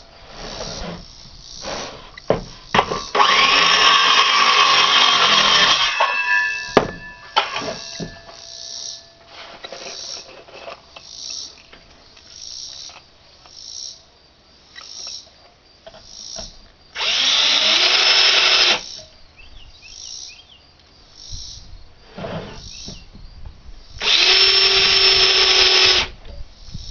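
Power drill running in three bursts of two to three seconds each, the first about three seconds in, one around seventeen seconds and one near the end, each rising in pitch as it spins up. Knocks and handling clatter come between the bursts.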